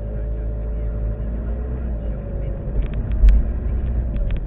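Car interior: a steady low rumble of engine and tyres as the car pulls away from a traffic light and turns. A sharp click comes about three seconds in, among several lighter knocks.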